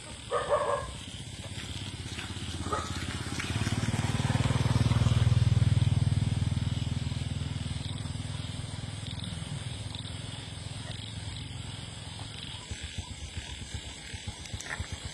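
A vehicle engine rumbles low, growing louder over a few seconds to a peak and then slowly dying away, with regular low pulses near the end. A brief sharp call sounds about half a second in.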